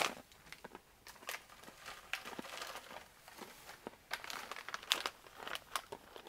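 Irregular crinkling and crackling of a foil snack bag of honey-roasted nut mix being handled, mixed with the crunch of the nuts being chewed.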